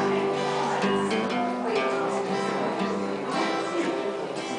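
Acoustic guitar strumming chords: an instrumental passage between sung lines of a country song.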